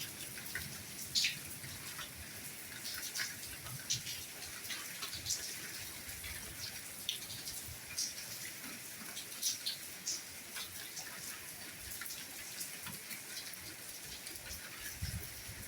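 Soft rainfall: a steady hiss with many scattered individual drop clicks, and a few dull low thuds near the end.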